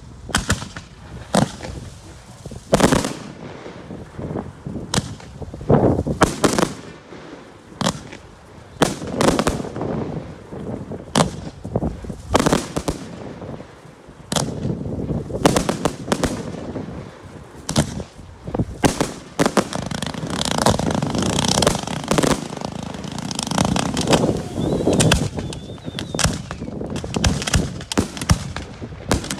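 Firework display: shells bursting one after another at irregular intervals. In the later part the bursts come so thick and fast that they run together into a near-continuous crackle.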